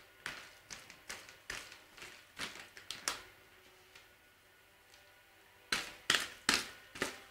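Cat swatting and grabbing at a dangling feathered toy: a string of short, sharp rustling swats through the first three seconds, a lull, then a quick run of four near the end.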